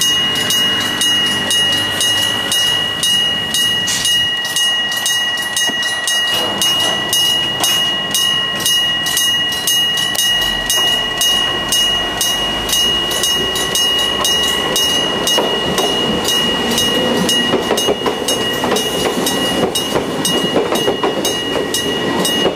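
Japanese level-crossing warning bell ringing over and over in a fast, even two-tone ding, with a train approaching and rolling across the crossing, its wheel and running noise building through the second half.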